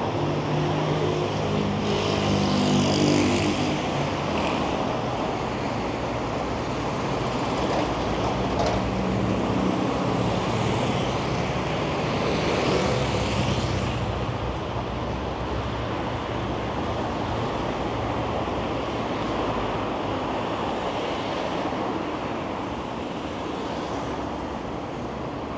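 City street traffic: a steady hum of cars and engines running at low speed, with a vehicle passing close by about three seconds in and another at about thirteen seconds.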